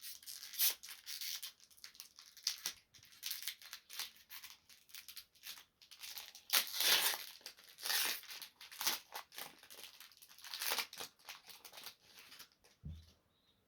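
Foil booster-pack wrapper being torn open and crinkled by hand, in irregular crackling bursts. A soft low thump comes near the end.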